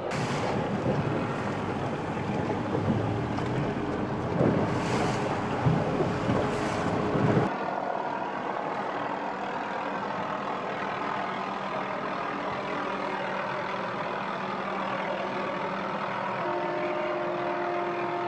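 Wind buffeting the microphone over the rush of a boat moving at sea, with gusts about 4.5 and 6.5 seconds in. About seven seconds in it cuts to a steadier, quieter boat-engine hum holding a few steady tones.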